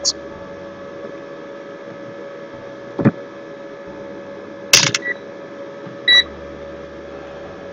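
A digital multimeter being set down on the desk with a knock, then giving short electronic beeps as it is switched on and set up, over a steady mains hum. A single light click comes about three seconds in.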